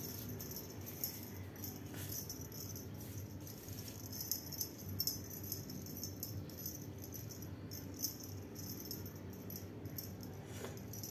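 Small jingle bell on a feather wand cat toy jingling and rattling in irregular shakes as a kitten bats at it, a little louder in short clusters about four, five and eight seconds in.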